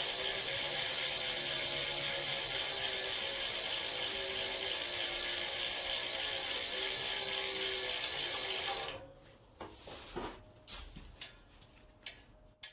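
SRAM Force AXS 12-speed chain running over its cassette with a steady, loud mechanical noise that the owner finds far too loud. The noise stops suddenly about nine seconds in, followed by a few scattered clicks and knocks.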